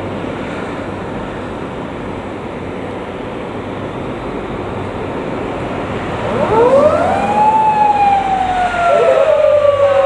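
Steady road traffic noise. About six and a half seconds in, the siren of an unmarked Toyota Camry police car starts: a loud wail that rises and then falls slowly, then rises again near the end. It is signalling a speeding car ahead to pull over.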